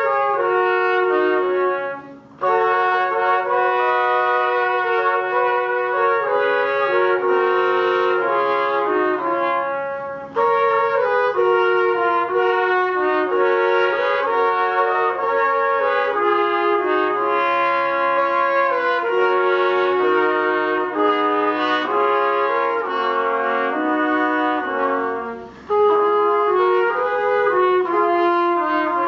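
A trio of trumpets plays a traditional folk-song arrangement in three-part harmony, in held, singing phrases. There are short breaks between phrases about two seconds in and again near the end.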